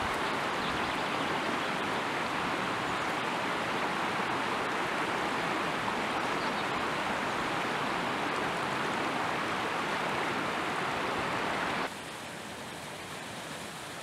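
Small mountain river rushing steadily over stones. About twelve seconds in it cuts to a quieter, softer rush of water from a small waterfall.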